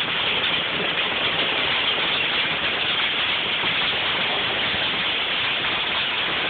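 A storm's heavy rain and hail coming down, with wind: a steady, dense hiss of many small impacts that holds at an even level throughout.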